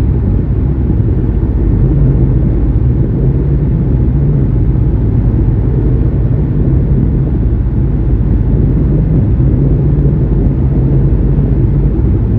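Sailboat's engine running steadily as the boat motors through choppy water, a low rumble mixed with rushing wind noise.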